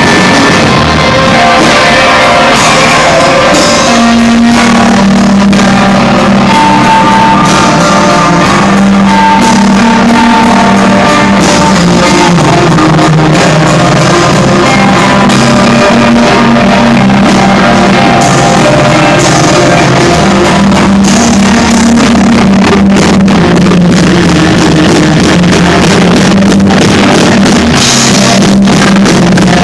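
Live rock band playing loudly: electric guitar and bass over a drum kit, with sustained held notes and no break.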